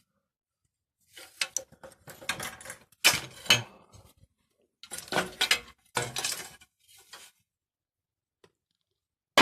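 Metal parts and tools being handled during a moped engine teardown: several bouts of metallic clinking and rattling, about a second in, around three seconds and around five to six seconds, then quiet near the end.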